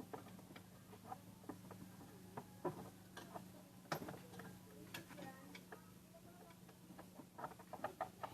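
Scattered light clicks and taps of hand tools and small metal parts being handled while an old washing machine is taken apart, coming at irregular times over a faint steady low hum.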